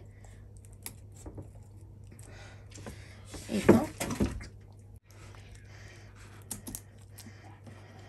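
Kitchen scissors snipping the fins off a whole hilsa fish: a scattering of small sharp clicks. About halfway through comes one louder knock and rustle as the fish is turned over on the chopping board.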